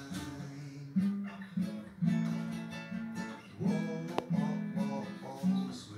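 Background music of strummed acoustic guitar, with a new chord about every second.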